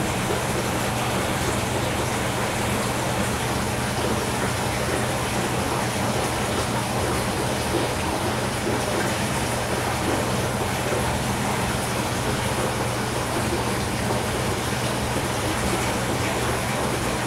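Aquarium filter return splashing steadily onto the water surface, a constant rain-like patter, with a steady low hum underneath.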